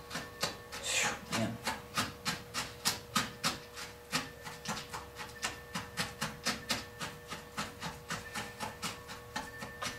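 A stick stirring and mashing oily sardines in a small container, scraping and knocking against its sides in quick, even strokes, about four a second.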